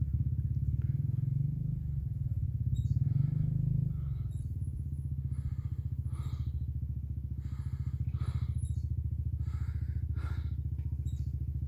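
A motorcycle engine idling steadily close by, a little louder in the first few seconds. Fainter engine revs come in short bursts every second or so from a dirt bike working its way down a rocky trail.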